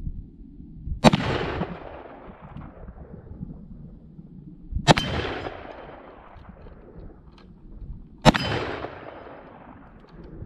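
Three shots from a Ruger Super Blackhawk .44 Magnum single-action revolver, about three and a half seconds apart. Each sharp crack echoes and dies away over a couple of seconds.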